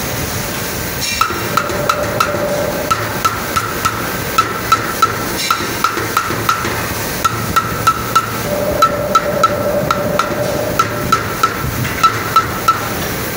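A hand mallet repeatedly rapping a metal core box, about two to three sharp knocks a second, each with a short metallic ring. The rapping loosens the sand core so it can be drawn out of the box.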